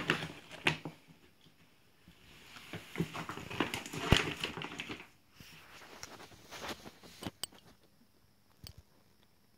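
Large plastic dog food bag crinkling and rustling as a Lhasa Apso noses around inside it, in bursts, the longest from about two to five seconds in. Near the end it goes quieter, with a few light clicks.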